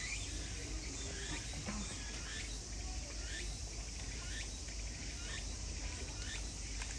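Steady outdoor background noise with a series of short, high, falling chirps, roughly one or two a second.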